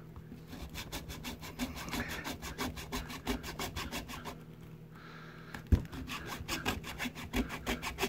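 A small hand saw with a thin blade in a frame rasping back and forth in quick short strokes through the plastic case of a screwless AC-DC power adapter to cut it open. The sawing pauses for about a second halfway through, there is a single sharp knock, and then the strokes start again.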